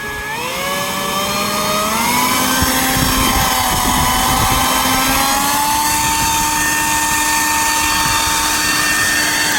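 Leaf blower spinning up to a steady high whine, its pitch rising in a step about two seconds in, then running at full speed; it begins to wind down at the very end.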